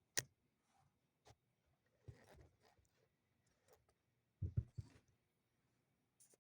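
Handling noises of a rubber bicycle inner tube being pressed flat to push the air out: a few sharp clicks and a cluster of soft thumps about four and a half seconds in, with near silence between.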